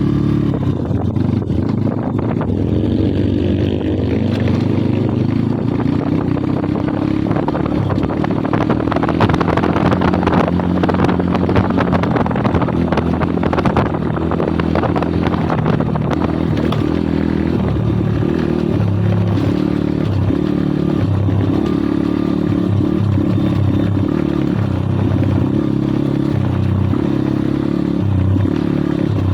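Kayo 140cc pit bike's single-cylinder engine running while riding, its pitch rising and falling as the throttle is opened and closed. There is a noisier, rougher stretch near the middle.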